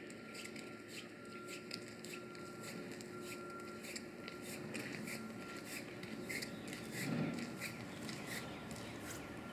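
Swishing of nylon insulated snow-bib pant legs rubbing together with each stride, in a steady rhythm of about two to three strokes a second, with footsteps on gravel. A brief louder low sound about seven seconds in.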